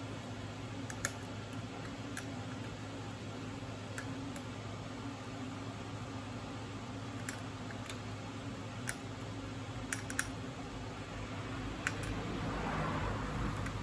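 Scattered light clicks of hand tools on a motorcycle battery's terminal bolts as the cables are tightened down, one every second or two, over a steady low hum. A soft scraping rustle near the end.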